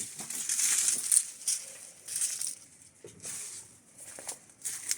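Cut tree branches rustling and crunching as they are handled, dense for the first couple of seconds, then a few scattered crackles and snaps.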